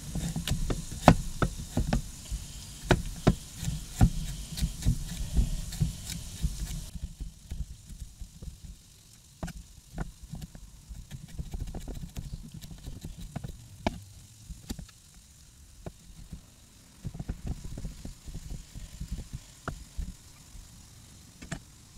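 Chef's knife dicing carrots on a wooden cutting board: quick, irregular knocks of the blade striking the board. For the first seven seconds oil sizzles in a frying pan beneath the chopping, then the sizzle cuts off abruptly.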